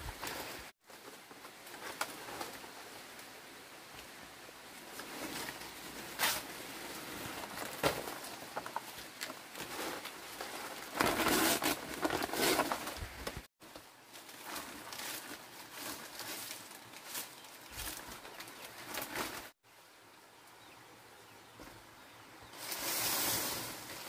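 Dry fan-palm fronds rustling and scraping as they are lifted and laid over a bamboo roof frame, with a few short knocks. The loudest rustling comes in the middle and again near the end.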